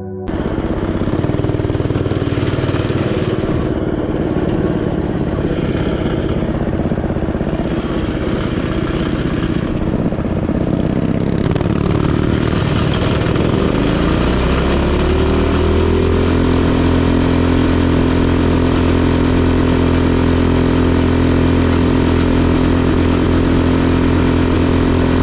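Predator 212 single-cylinder four-stroke mini bike engine running with its freshly fitted stock camshaft, cutting in suddenly, with rushing noise over it. Its pitch shifts about halfway through, then it settles into a steady note.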